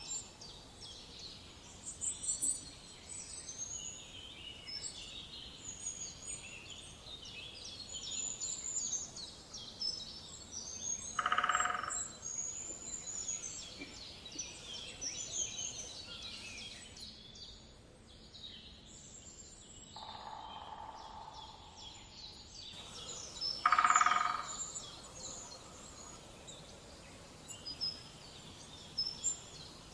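Wild birds in woodland ambience: many small birds chirping and whistling high up, with two louder, lower calls of about a second each, roughly twelve seconds apart.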